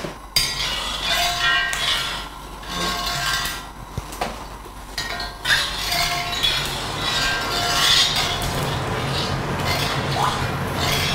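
Metal ladle clinking and scraping against a wok as the oil in it heats, over a steady hiss.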